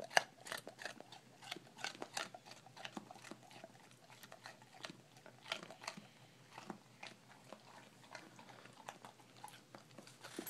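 A dog crunching and chewing a hard treat, with irregular crunches several times a second.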